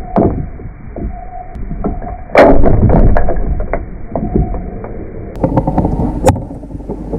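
Ghost crab and peacock mantis shrimp scuffling in an aquarium: scattered clicks and knocks of claws and legs on coral rubble and glass over a low rumble. One loud crack and clatter comes about two and a half seconds in.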